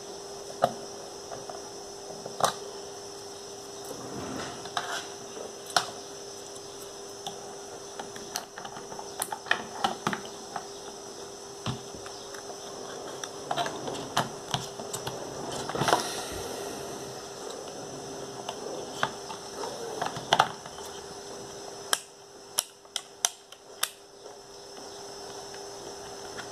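Handling clicks and knocks from a Yashica T2 compact 35mm camera being loaded: the plastic back door opened, a film cassette set in and the film leader drawn across. The sharp clicks are scattered throughout, with a short rustle about two-thirds through and a quick run of clicks near the end, over a steady faint hum.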